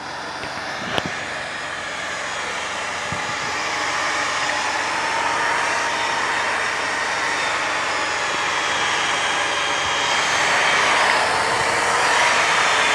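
Corded electric drill with a long twist bit running steadily as it bores into the fibrous base of a palm trunk, getting a little louder as it goes. A single sharp click about a second in.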